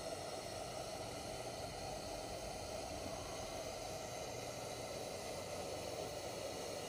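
Coleman 238B pressurised liquid-fuel lantern burning with a steady hiss.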